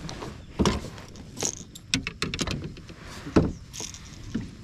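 Irregular clicks, knocks and rattles as a landing net holding a freshly caught drum, and the tackle with it, are handled on a plastic kayak deck. Several sharp clicks come close together about two seconds in.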